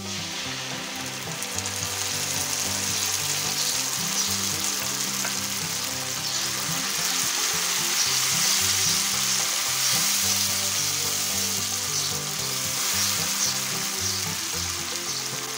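Tomato paste and chopped onions sizzling in hot oil in a non-stick frying pan as they are stirred with a silicone spatula. The sizzle grows louder over the first few seconds after the paste goes in.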